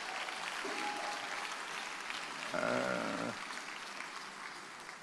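Congregation applauding and cheering, with a voice calling out about halfway through; the applause dies down toward the end.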